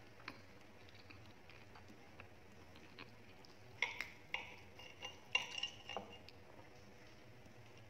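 Metal knife and fork clinking and scraping against a plate as they cut into a sauced chicken drumstick: a few faint ticks, then a quick run of clinks about four to six seconds in.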